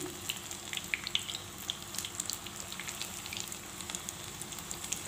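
Raw banana tikkis shallow-frying in hot refined oil in a pan: a steady sizzle with many small crackles and pops.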